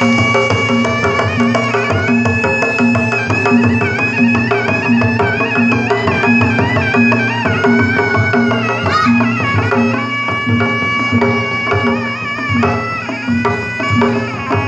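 Sundanese pencak silat accompaniment music: a terompet's wavering, sliding reed melody over kendang drums and a steady gong beat.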